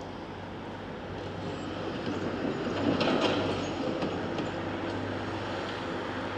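Demolition excavator working: its diesel engine running steadily under a clatter of rubble and metal, which is loudest about three seconds in.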